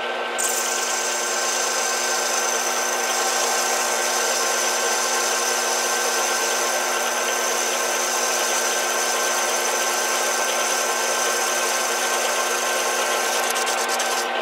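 Metal lathe running, its motor and gearing giving a steady hum, while a small boring bar cuts the bore of a metal filter step-up ring. A high hiss with a thin whine sets in about half a second in as the tool engages the cut, and a few ticks are heard near the end.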